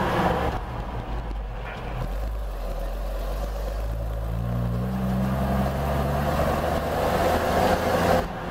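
Old fire engine's Waukesha F817G gasoline engine running while driving, heard from inside the cab: a steady low drone whose pitch climbs about four seconds in as the engine picks up speed, then settles.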